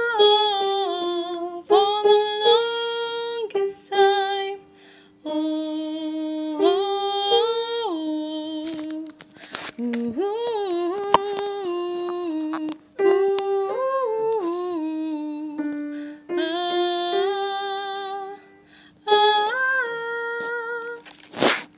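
A woman humming and singing a soprano harmony line without words, in phrases of held notes that step down and up in pitch with short breaks between them. A steady low held tone sounds underneath, and there is one brief sharp thump near the end.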